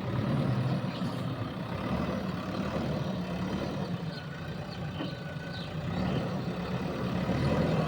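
Diesel engine of a JCB 3DX backhoe loader running steadily, growing a little louder near the end.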